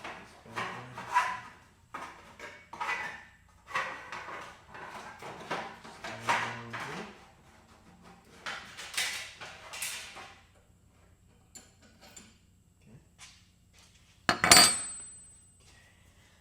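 Hand tools and metal parts clinking and clattering as they are handled and set down, in irregular knocks for about ten seconds, then a few small clicks, and one loud metallic clank near the end that leaves a brief ringing tone.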